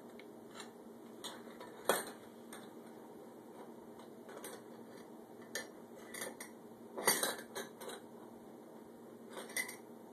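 Metal spoon clinking and scraping against ceramic mugs as a small child dips and fishes an egg out of a cup of dye: scattered light clinks, with a louder cluster about seven seconds in.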